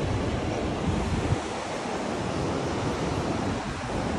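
Ocean surf washing on the beach, with wind buffeting the microphone, heaviest in the first second or so.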